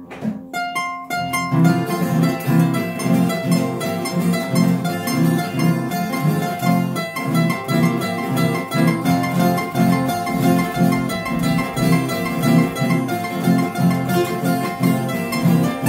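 Andean string trio of requinto, tiple and guitar playing an instrumental passage: a few single plucked notes open it, then a steady strummed rhythm sets in with a picked melody over it.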